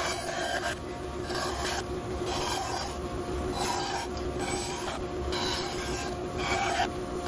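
Bandsaw running with a steady hum while its blade cuts through a black walnut board, the rasping cut swelling and fading in short stretches as the wood is fed and turned along the line.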